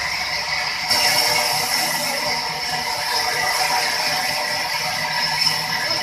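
Large sawmill band saw running and cutting through a log, a steady high whine over a hiss. It gets louder and hissier about a second in, as the blade bites into the wood.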